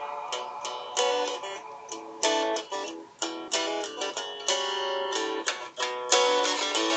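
Guitar music played back through a Samsung i8910 HD phone's loudspeaker: a run of plucked notes with sharp attacks and little bass.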